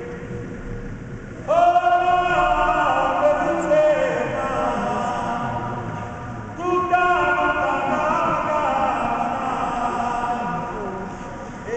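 Traditional southern Italian devotional chant, sung in long phrases. Two phrases start loud, about a second and a half in and again about seven seconds in, and each sinks gradually in pitch as it goes on.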